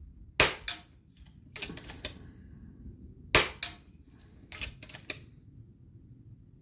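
FX DRS PCP air rifle, sub-12 ft-lb, fired twice about three seconds apart, each shot a sharp crack followed a moment later by a fainter crack. About a second after each shot comes a quick run of metallic clicks as the action is cycled to load the next pellet.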